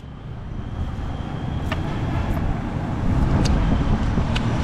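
Steady low rumble of road traffic, growing louder over the first couple of seconds, with four or five sharp clicks as a large knife works scaled tilapia on a wooden chopping stump.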